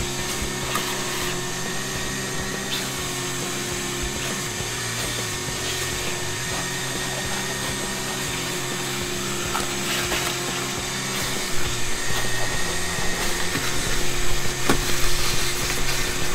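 Shop vacuum running steadily with a steady whine as its hose nozzle works over the truck cab's floor carpet. It gets louder and more uneven in the last few seconds as the nozzle moves around the seat-mount area.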